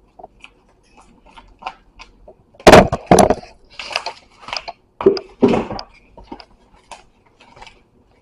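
A spoon stirring thick cornbread batter in a mixing bowl, knocking and scraping against the bowl in irregular strokes, with a few louder knocks in the middle.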